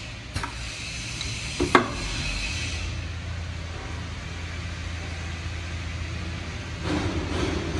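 Vacuum blood collection tube assembly machine running: its multi-pin head works with two sharp clacks, about half a second and nearly two seconds in, over a steady machine hum. A burst of hiss comes in near the end.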